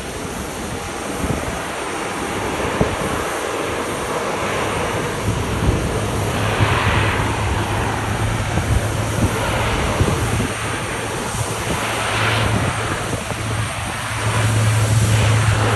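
Twin Pratt & Whitney PW150A turboprop engines of an ANA DHC-8-400 at takeoff power. A steady low propeller drone over engine noise, with slow swells in the higher noise. The drone grows stronger partway through and louder again about a second and a half before the end.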